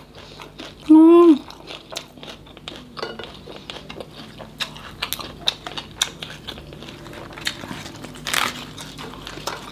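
Close-up eating sounds: a short hummed "mm" about a second in, then crunchy chewing of small fried shrimp-like crustaceans (tôm nhũi) as a run of small sharp crackles. Near the end comes a brief louder rustle as lettuce is handled.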